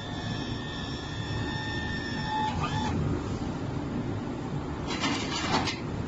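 Electric stacker's motor and hydraulic pump running with a steady whine, which cuts off about halfway through with a short falling squeak. A few sharp metallic clicks and squeaks follow near the end.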